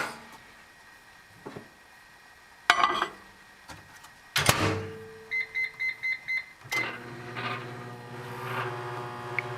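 1350-watt microwave oven being set going: two sharp clacks, then five quick keypad beeps. About two-thirds of the way in the oven starts and runs with a steady hum.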